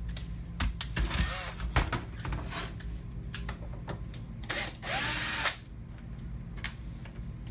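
Cordless power screwdriver run in short spells to back out screws, the longer and louder spell about five seconds in, with clicks and knocks of handling on the metal bench.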